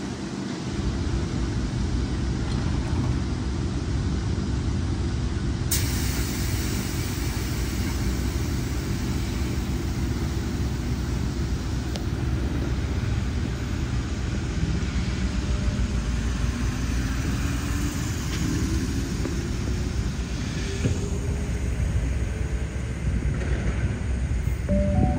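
Sydney Trains double-deck electric train running with a steady low rumble; from about sixteen seconds in, a rising motor whine as it picks up speed. A brighter hiss comes in suddenly about six seconds in.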